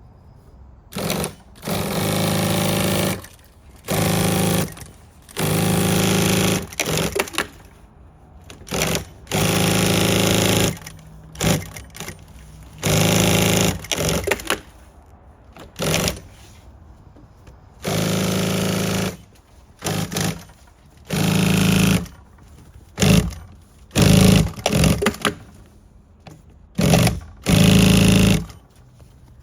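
Brother DB2-B798-300 industrial walking foot sewing machine run in repeated short bursts, stitching at speed for about a second at a time and then stopping, again and again, with short quiet gaps between.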